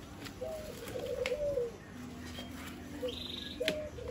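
A dove cooing: two pulsing coos of about a second each, each dropping in pitch at its end. A few sharp clicks come in between, as plastic cable ties on the crates are snipped.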